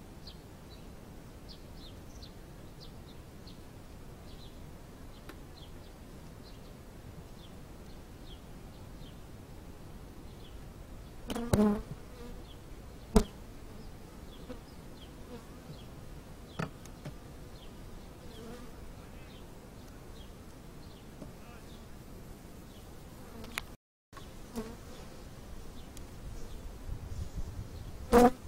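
Honey bees buzzing around an open hive, with a few sharp wooden knocks as hive frames and the cover board are handled. The loudest knocks come about halfway through and just before the end.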